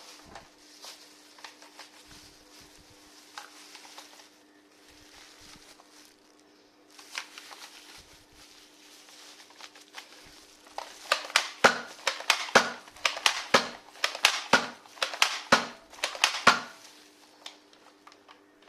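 Rustling and crinkling handling noise with scattered light clicks, then from about eleven seconds a quick, loud run of sharp clicks and snaps lasting about six seconds, over a steady low hum.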